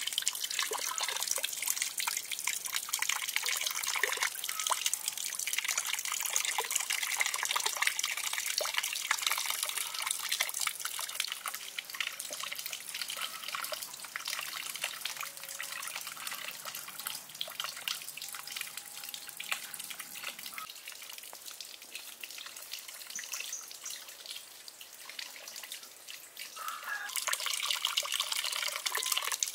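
Water trickling and dripping into a pond in a steady patter of small splashes. It is softer through the middle and louder again near the end.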